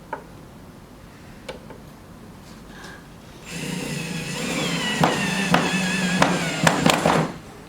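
Electric drill with a screwdriver bit driving a wood screw into a wooden board: the motor runs steadily for about four seconds, its whine sinking slightly in pitch as the screw tightens, with several sharp clicks, then stops suddenly.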